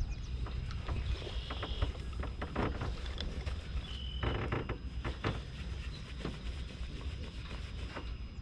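Outdoor ambience on a fishing boat: a steady low wind rumble on the microphone, with scattered light clicks and knocks and a few short high chirps, one about a second in and one about four seconds in.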